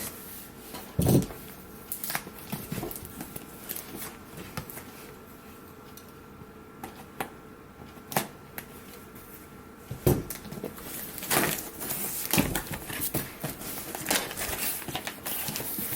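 A mailed package being opened by hand: scattered clicks, taps and rustling of packaging. There is a thump about a second in, and busier rustling and crinkling in the last few seconds.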